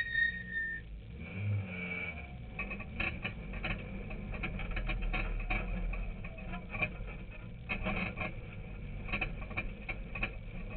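Inside a rally car on a dirt track: the engine runs low under a rapid, irregular clatter of rattles and knocks from the car and the rough ground.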